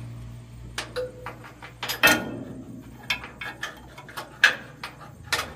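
Sharp metal clinks and clanks of a wrench and socket against a steel fuel-tank hanger bracket and bolts on a truck chassis during unbolting, the loudest about two seconds in and again later. A steady low hum runs underneath and stops near the end.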